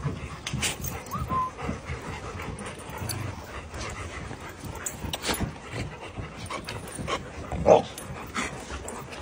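A crowd of dogs jostling close together, with shuffling and brief whimpers. A short high whine comes about a second in, and one louder short yelp about three-quarters of the way through.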